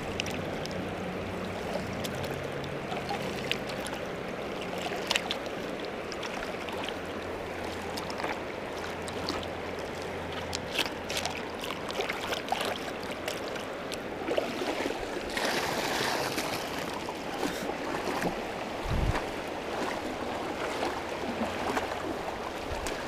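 Flowing creek water with gravel and rocks clicking and knocking in a plastic gold pan as it is washed under the water, with a brief splash about two-thirds of the way in.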